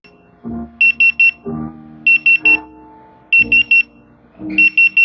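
A café guest pager going off, sounding four bursts of three quick, high beeps about a second and a quarter apart, with its red lights flashing: the signal that the order is ready for pickup. Soft background music plays underneath.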